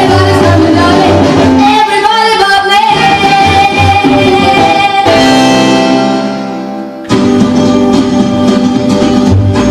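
Recorded music: a song with vocals ends on a long held chord that fades out, and about seven seconds in a new track starts abruptly with plucked strings and a beat.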